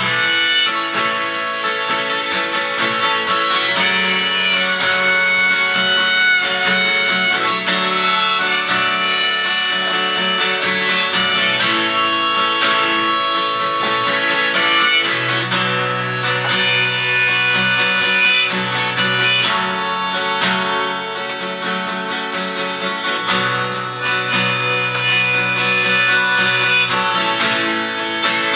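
Harmonica playing a melody of held notes over acoustic guitar accompaniment.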